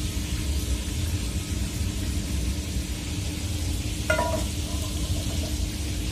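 Hot sautéed vegetables tipped from a frying pan into a pot of simmering broth, with a steady sizzling hiss over a low stove rumble. About four seconds in, the metal frying pan is set down on the stove with a short clunk and ring.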